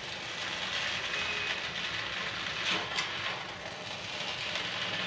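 Chow mein noodles sizzling in a hot kadhai while being tossed and stirred with a wooden spatula and a steel spoon, a steady frying hiss with a couple of light utensil clicks about three seconds in.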